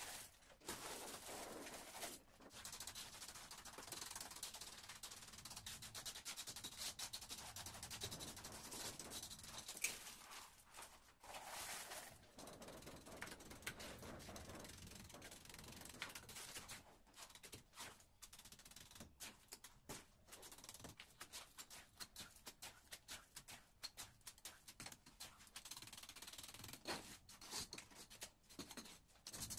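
Steel trowel scraping and spreading wet, gravelly concrete mix: a faint, continuous gritty scrape with many small scratches and clicks, and one sharper clink about ten seconds in.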